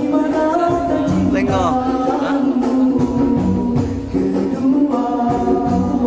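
Male nasyid group singing a song together over a steady rhythmic beat.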